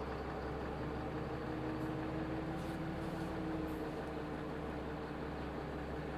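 Mitsubishi Fuso Aero Star (QKG-MP38FK) city bus's diesel engine heard from inside the passenger cabin, running with a steady hum over road and cabin noise.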